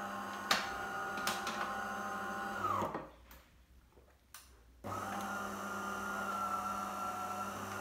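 De'Longhi Magnifica Evo bean-to-cup coffee machine's pump humming as it runs its rinse cycle on being switched off. The hum stops about three seconds in, a click follows, and it starts again about five seconds in.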